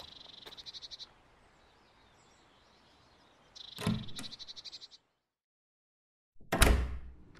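An electric buzzer sounds twice, each time as a fast, high, rattling buzz lasting about a second, with a low knock at the start of the second buzz. Near the end comes a single heavy thump, the loudest sound.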